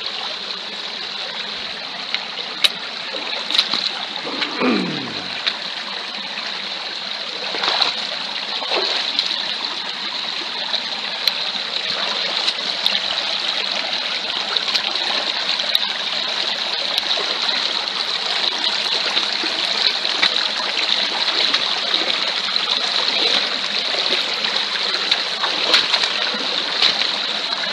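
Shallow stream running over stones, with scattered splashes from wading through it in wellington boots. About five seconds in comes one short sound sliding down in pitch.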